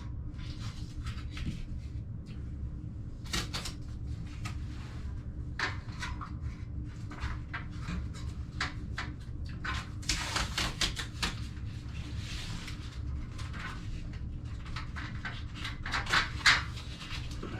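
Hand work on a shower-door side rail: scattered clicks, taps and rustling as parts and tape are handled, with a longer rasping stretch about ten seconds in, over a steady low hum.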